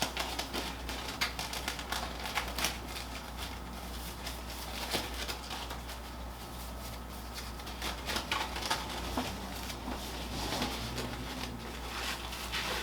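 Scattered light clicks and rustling of hands working hair and handling styling tools, over a steady low hum.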